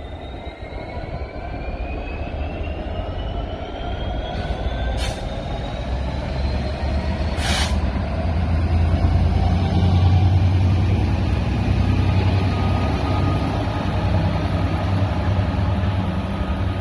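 Class 66 diesel-electric locomotive's two-stroke V12 engine running as it pulls past on its own, with a deep, steady rumble that grows loudest as it draws level. Over the rumble a whine slowly rises in pitch, and there are two short hisses of air, about 5 and 7.5 seconds in.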